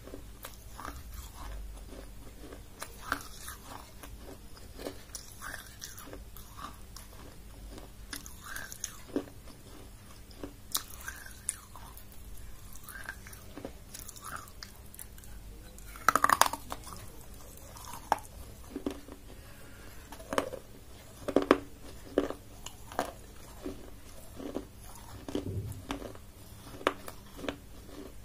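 Close-miked biting and chewing of a piece of food, with scattered crunches and mouth clicks. The loudest bite comes about sixteen seconds in, and a quick run of crunches follows around twenty-one seconds.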